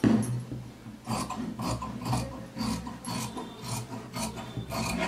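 Scissors cutting through layered blouse cloth (outer fabric and lining together) in a steady run of scraping snips.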